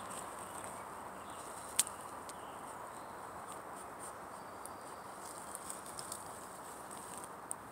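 Faint rustling and crackling of dry pine needles and leaf litter, stirred by a foraging armadillo and the footsteps following it, with one sharp click about two seconds in.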